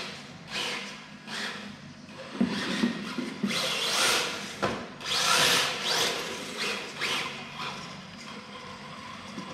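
RC drift car on an MST chassis, its electric motor whining in repeated throttle bursts as it slides on a tiled floor, tyres scrubbing. The loudest surges come around four and five to six seconds in.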